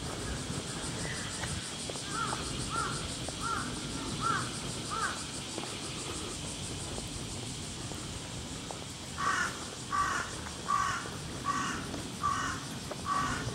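Crow cawing: six harsh caws about two-thirds of a second apart in the second half, after an earlier run of five shorter, lighter calls.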